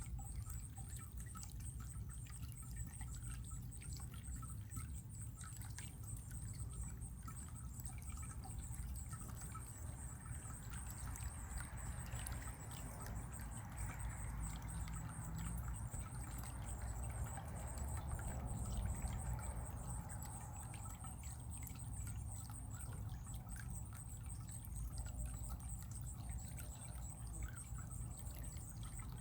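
Running water trickling and dripping steadily, with many small drips, swelling a little in the middle.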